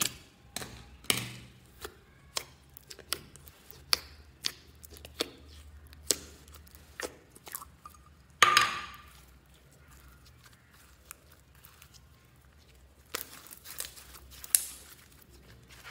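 Soft pink slime handled in and out of its plastic tub: a string of sharp sticky clicks and pops, a longer squelch just past halfway as the slime slides out, then a cluster of crackling squishes near the end as fingers press into it.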